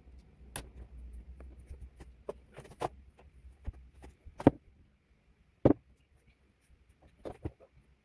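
Pen and paper handled on a desk: a few scattered taps and knocks, the loudest about four and a half and five and a half seconds in, over a faint low hum that stops about halfway through.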